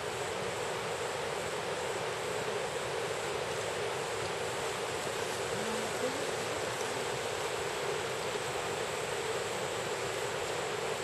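Steady rush of a shallow river running over rocky shallows.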